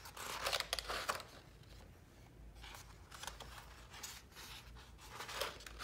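Paper rustling as the pages of a disc-bound planner are turned and handled, in several short spells with quiet between.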